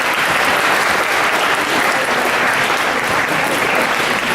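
Large audience applauding steadily, a dense sustained clapping from a room full of schoolchildren, fading away about a second after it ends.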